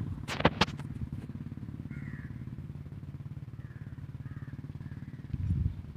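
A small engine running steadily at idle, a low even pulsing rumble, with a few sharp clicks about half a second in.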